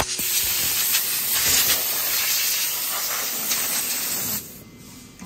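Steady, loud hiss of rushing air that drops away sharply about four and a half seconds in.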